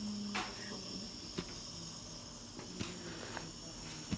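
Steady hiss of a nebulizer face mask running, its mist driven by gas flow, with a few faint ticks scattered through.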